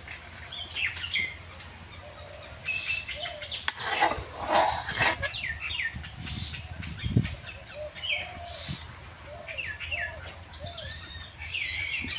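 Small birds chirping in short, repeated calls over a low steady rumble. A brief louder rushing noise comes about four seconds in.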